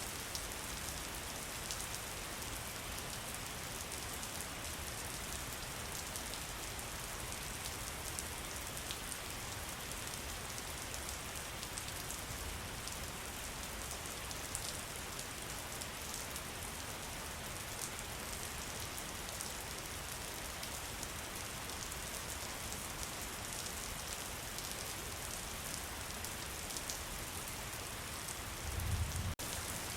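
Steady rainfall, an even hiss with individual drops ticking. A low rumble of thunder starts near the end.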